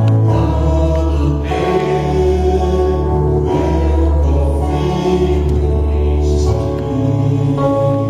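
Slow church worship music: long held chords over a deep bass, the chord changing every second or two, with a few soft swelling hisses above.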